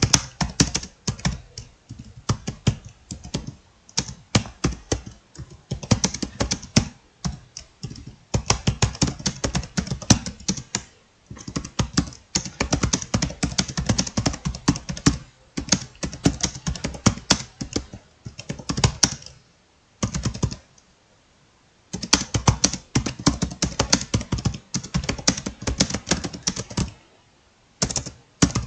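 Rapid typing on a laptop keyboard: fast runs of key clicks with short pauses, the longest for about two seconds around twenty seconds in.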